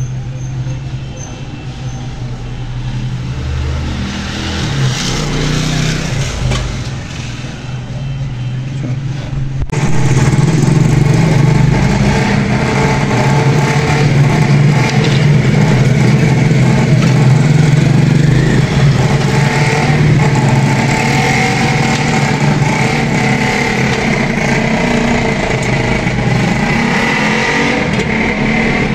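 A steady low mechanical drone with noise over it, which becomes louder after an abrupt cut about ten seconds in.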